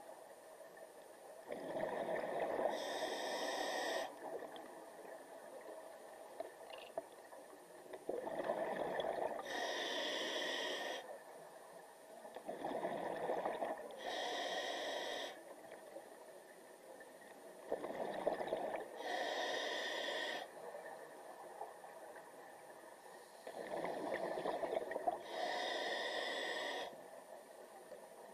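Scuba regulator breathing heard underwater: a slow, regular cycle of breaths, each a hissing draw through the demand valve and a bubbling exhalation. Five breaths come about every five to six seconds.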